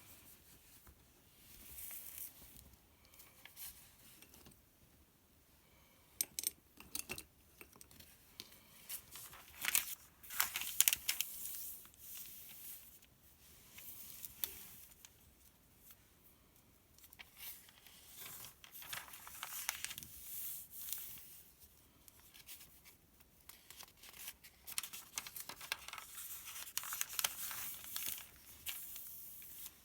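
Pages of a paper sales circular being turned and handled: repeated bursts of crisp rustling and crinkling with small sharp clicks, loudest about ten seconds in.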